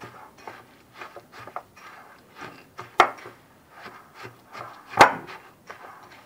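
Spatula stirring and scraping crushed biscuits bound with condensed milk and melted margarine in a glass bowl, in quick repeated strokes. Two sharp knocks against the bowl, about three and five seconds in, are the loudest sounds.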